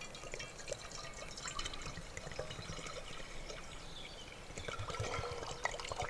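Water pouring from a drinking bottle into a stainless-steel cooking pot, an even trickling splash as the pot fills.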